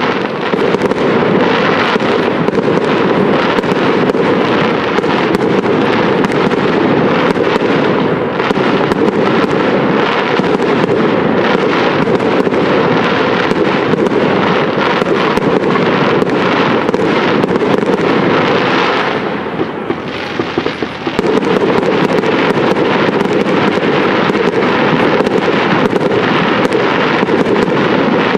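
Aerial fireworks display: a dense, continuous barrage of shell bursts and crackling with many rapid bangs, easing briefly about twenty seconds in before picking up again.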